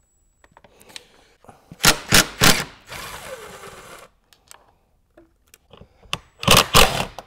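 A socket tool undoing the bolts from the underside of a motorcycle's tail section: a quick run of sharp clicks about two seconds in, a rasping noise for about a second after it, and another dense run of clicks near the end.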